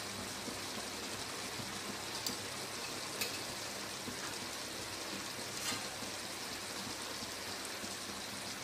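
Chicken and tomato masala gravy sizzling and simmering in a steel pot on the stove: a steady hiss with a few sharp pops.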